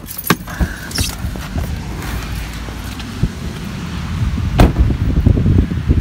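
A car door opening and getting out into heavy rain: a steady hiss of rain, several knocks, and a loud door slam about four and a half seconds in, followed by quick footsteps splashing on wet pavement.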